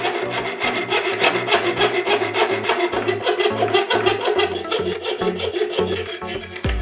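A hand file rasping in rapid, continuous strokes, over background music with a steady bass line.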